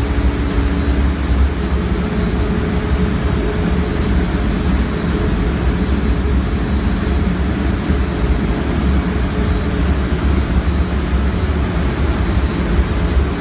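Industrial boiler running, a steady deep rumble under an even hiss that holds unchanged.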